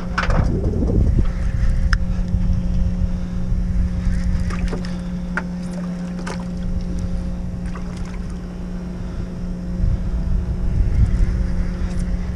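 A boat's engine idling with a steady hum, under a low rumble of wind on the microphone. A few light clicks are scattered through it.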